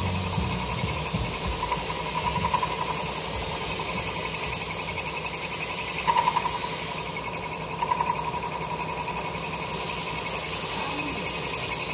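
Steady running of shop machinery, with a constant high tone. About four seconds in it settles into an even, rapid pulsing.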